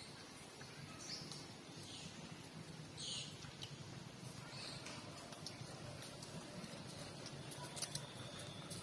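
Faint, high-pitched squeaks from a litter of puppies jostling to suckle, four or five short ones about a second apart in the first half, over a low steady hum. A few light clicks near the end.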